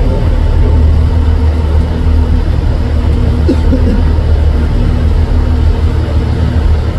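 Bus engine and road noise heard from inside the moving bus: a loud, steady low rumble with a faint engine hum over it.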